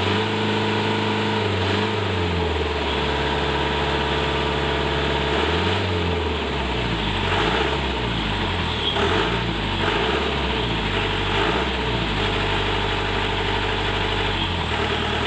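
A safari jeep's engine idling steadily, its pitch shifting a few times.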